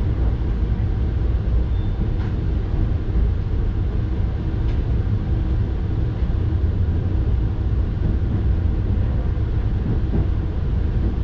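Steady low rumble of the Saphir Odoriko electric limited-express train, heard from inside a car as it runs out of the station over the tracks, with a few faint clicks.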